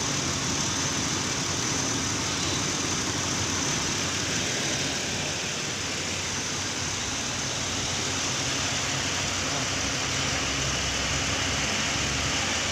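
Ford Explorer engine idling steadily. It runs properly now that a faulty ignition coil, the cause of a misfire, has been replaced.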